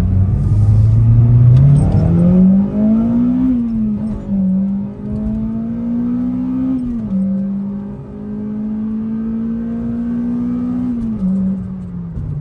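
Acura RSX's 2.0-litre K20 four-cylinder under hard acceleration. The revs climb quickly to high rpm and drop with an upshift about three and a half seconds in. They climb again through the next gear, drop with another upshift around seven seconds, then rise slowly before falling off near the end.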